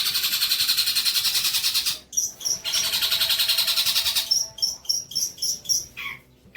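Songbird singing trotol-type song material for tutoring: two long, very fast rattling trills of about fifteen notes a second, with short high piping notes between and after them, then lower chirps spaced about half a second apart near the end.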